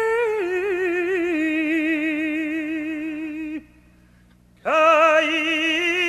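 A cantor's solo voice singing a Hebrew liturgical melody with wide vibrato. A high held note slides down in ornamented turns to a lower held note, which breaks off about three and a half seconds in. After a pause of about a second, a new held note begins.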